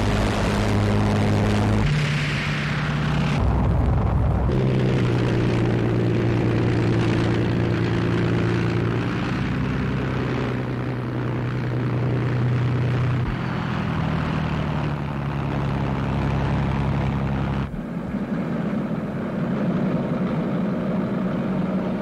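Propeller aircraft engines droning steadily in flight. The drone jumps in pitch and level a few times, about 2, 3.5, 4.5 and 18 seconds in, as the shots change.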